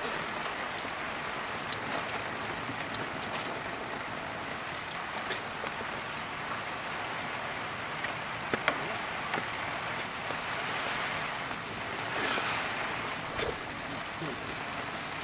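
Steady rain falling, with scattered sharp ticks of raindrops striking close by.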